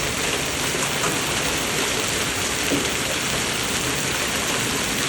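A hailstorm: hail and heavy rain falling steadily, a dense even patter with scattered small hits.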